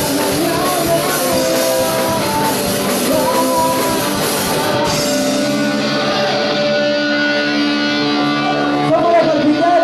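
Rock song with singing over guitar and drums; about halfway through the bright top end falls away, leaving long held notes.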